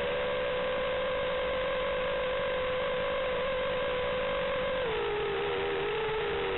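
FPV quadcopter's electric motors and propellers whining at a steady pitch; about five seconds in the pitch drops and wavers as the throttle is eased.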